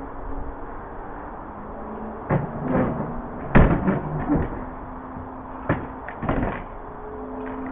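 Rear doors of a curtain-sider trailer being unlatched by hand: a series of sharp metal clanks and knocks from the door latches, the loudest about three and a half seconds in, over a steady low hum.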